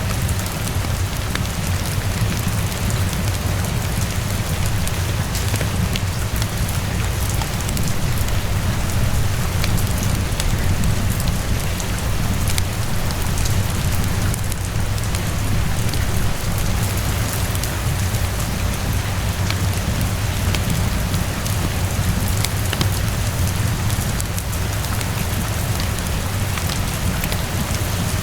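Steady rainfall with a deep, even rumble underneath and scattered small crackles and drop ticks, as in a mixed rain-and-fireplace ambience.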